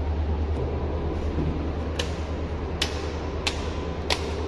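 Wall rocker switches on a classroom switchboard clicking four times, one after another, under two-thirds of a second to about three-quarters of a second apart, as the ceiling fans are switched on.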